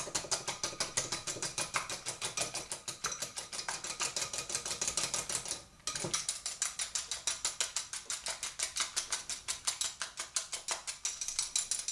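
A fork whisking egg white in a small glass bowl: rapid, even clinks of metal against glass, about seven a second, with one short pause about halfway through.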